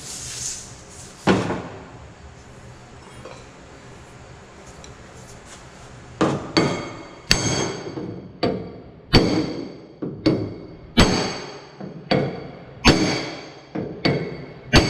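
Hammer blows on the sheet-steel shell of a Chevy Traverse door being straightened, each strike leaving a brief metallic ring. A single knock comes about a second in. After a pause of several seconds, steady hammering starts at about two blows a second.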